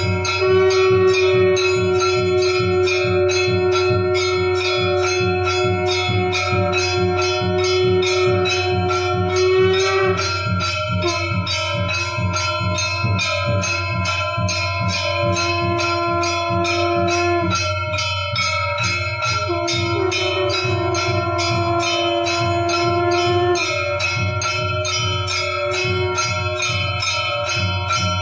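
Temple bells struck fast in a steady beat, about three strokes a second, during an aarti. Underneath are long held tones that shift to a new pitch every several seconds.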